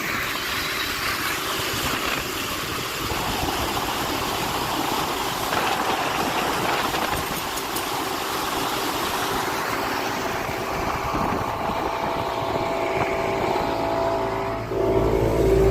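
Motorboat engine running at cruising speed under a steady rush of wind and water noise. Near the end the engine gets louder and deeper.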